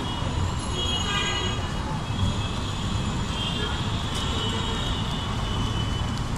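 Busy street traffic noise, a steady rumble, with people's voices in the background.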